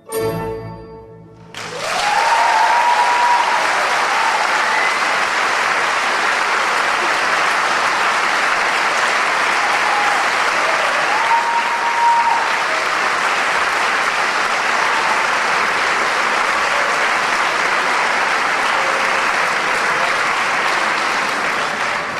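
Orchestral music ends on a final chord, and about a second and a half in, audience applause breaks out and runs on steadily.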